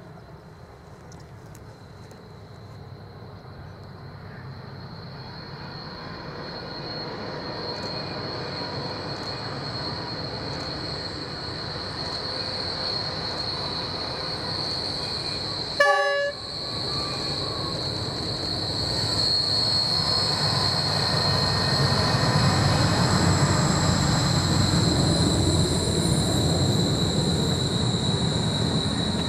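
NR class diesel locomotives hauling a long passenger train around a curve, their engine rumble and rolling noise growing steadily louder as the train approaches and passes. A high, steady wheel squeal on the curve runs throughout, and there is a short horn blast about sixteen seconds in.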